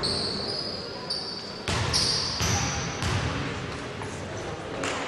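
A basketball being dribbled on a hardwood court, with sneakers squeaking on the floor as players move.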